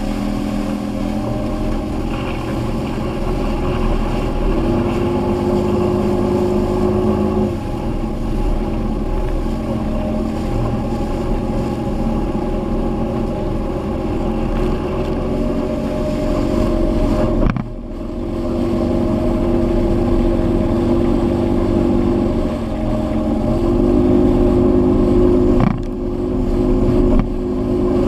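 Evinrude outboard motor running at speed, pushing the boat through the water. Its pitch shifts a few times as the boat turns, with two brief drops in the sound in the second half.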